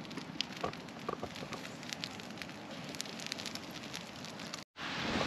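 Wood campfire burning, with scattered sharp crackles and pops. Near the end it cuts off abruptly and gives way to a steady rushing noise.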